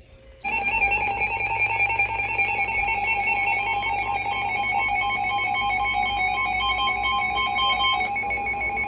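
Emergency Alert System two-tone attention signal: a loud, steady dual tone that starts about half a second in and holds without a break. It is the alert signal sounded just before a warning message is read.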